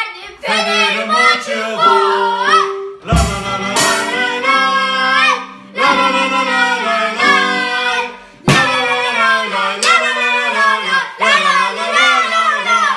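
Children singing a Fenerbahçe football chant, accompanied by a drum kit, a digital piano and a ukulele. Sharp drum hits stand out about three seconds in and again past eight seconds.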